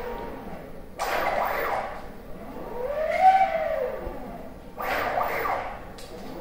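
PrintNC CNC router's axis motors driving the gantry along its ball screws: a whine that rises in pitch as a move speeds up and falls as it slows, repeating about every two seconds. Between the moves come two harsher rushing stretches, about one and five seconds in.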